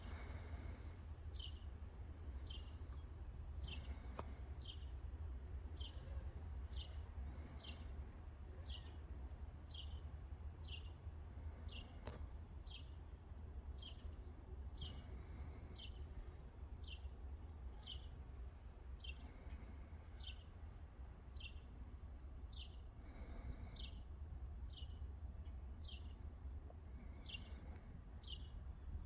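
A bird chirping over and over, one short, slightly falling chirp about every two-thirds of a second, over a steady low rumble.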